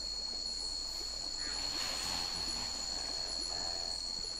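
Rainforest ambience: a steady, high-pitched insect chorus, with a faint warbling animal call about three and a half seconds in.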